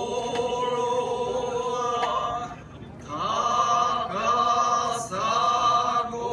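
Voices chanting a slow ritual rice-planting song in long held notes, pausing briefly about two and a half seconds in and again near five seconds. A few light knocks sound with it.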